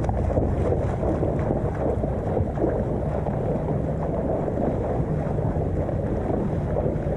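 Wind buffeting the microphone: a steady rumbling rush of noise.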